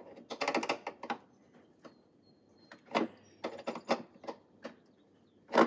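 A screw being turned back and forth in a piece of wood, gripped by Engineer PZ-58 screw-removal pliers, giving two bursts of quick clicks: one about half a second in and a longer one around three seconds in.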